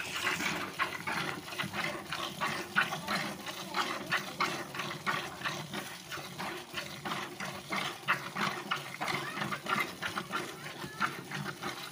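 A cow being milked by hand: milk squirting from the teats into a plastic bucket in a steady rhythm of short jets, one per pull.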